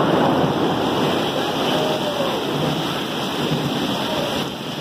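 Heavy rain pouring down onto a flooded street and pavement: a steady, dense hiss, a little louder in the first couple of seconds.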